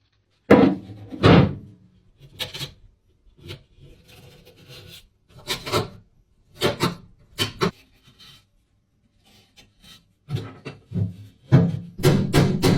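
Irregular scraping and rubbing strokes, one at a time with pauses between them, as of rusty metal being worked. Near the end, music with a quick steady beat comes in.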